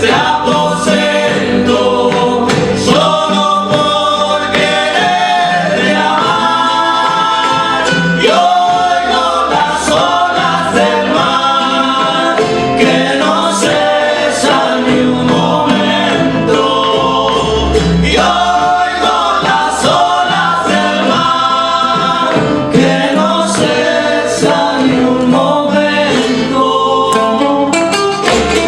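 Son jarocho ensemble playing live: strummed jaranas and a plucked requinto over bass and percussion, with several voices singing together.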